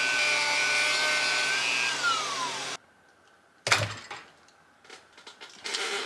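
Handheld power tool running steadily as it cuts into a battery case. About three seconds in it is released and its pitch falls as it winds down. A sharp knock follows, then a few small clicks and another knock near the end.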